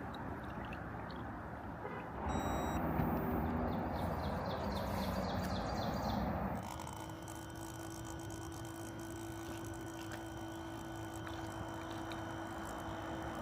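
Small battery-powered motor of portable espresso gear running: a louder whir with several steady tones for about four seconds, then it drops, about six and a half seconds in, to a quieter, steady hum holding one tone.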